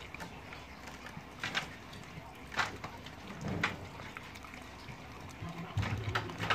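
Three-month-old pitbull puppy gnawing raw chicken on the bone: wet chewing with a few sharp, irregular crunches. A low rumble starts near the end.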